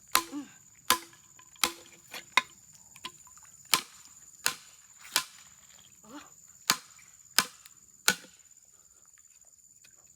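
A hand tool striking rock and gravel in steady strokes, a sharp knock about every 0.7 seconds, a dozen or so in all, stopping about eight seconds in. A steady thin high whine runs underneath.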